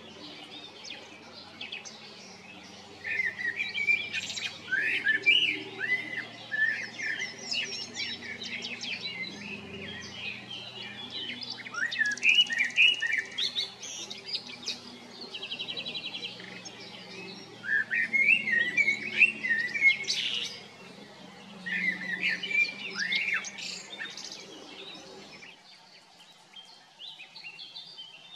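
Male common blackbird singing: a series of mellow, fluty warbled phrases, each ending in higher, squeaky twittering notes, with short pauses between them.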